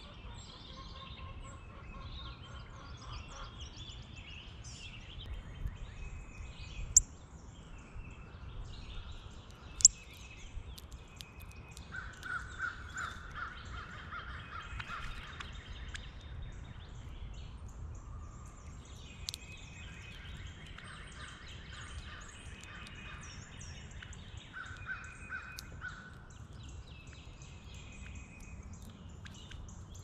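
Several wild birds singing and calling at once, with a louder run of rapid, harsh repeated notes near the middle and again shortly before the end. Two sharp clicks stand out about seven and ten seconds in, over a steady low rumble.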